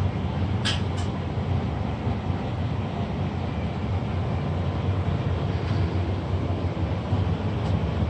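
Steam boiler burner firing with a steady low rumble, with two brief sharp noises about a second in.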